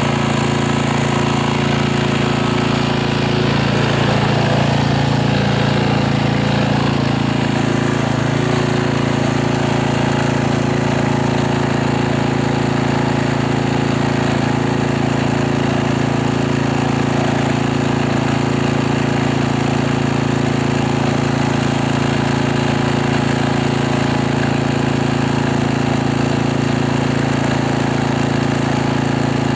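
Small portable generator's engine running steadily at constant speed, powering leads clipped into the soil.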